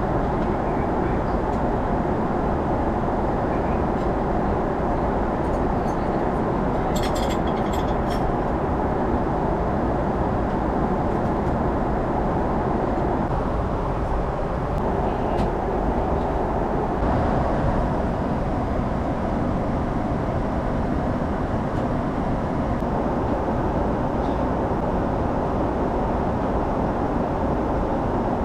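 Steady rumble of a Boeing 777 airliner cabin, with engine and airflow noise and a few brief clicks about seven to eight seconds in.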